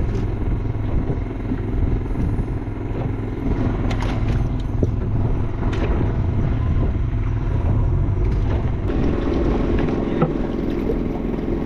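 A fishing boat's engine running steadily with a low drone, with a few light knocks; about nine seconds in, the tone of the drone changes.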